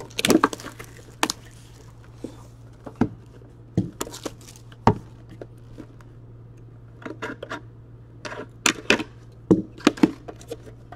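A sealed trading card box being unwrapped and opened by hand: crinkling shrink wrap, rustling cardboard and light taps in short scattered bursts, quieter for a couple of seconds midway, over a low steady hum.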